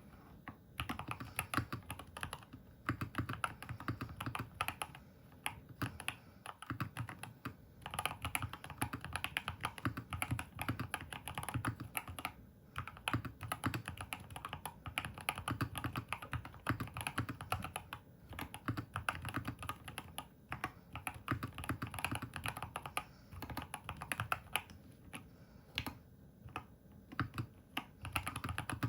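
Fast typing on a Keychron K2 HE hall-effect keyboard with Gateron double-rail magnetic switches, with runs of keystrokes broken by brief pauses every few seconds. The typing is clacky rather than thocky, as is usual for magnetic switches with these not fully double-shot keycaps.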